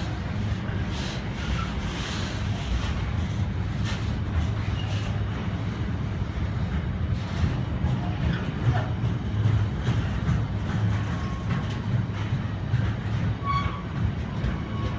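Container freight train's flat wagons rolling past at steady speed: a continuous low rumble of steel wheels on rail, with scattered clicks and a few short high squeaks in the second half.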